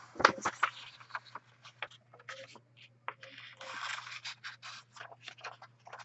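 A sheet of paper being folded in half and creased by hand: irregular papery rustles and scrapes, with a longer rustle about midway. A steady low hum runs underneath.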